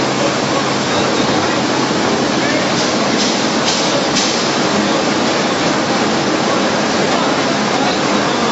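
Waste plastic film and woven-bag crusher and washing line running: a steady, loud machine din as the crusher shreds the film and discharges it onto the conveyor, with a few brighter bursts about three to four seconds in.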